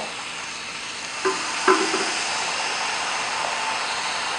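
Marinated portobello mushroom caps sizzling steadily in a very hot frying pan.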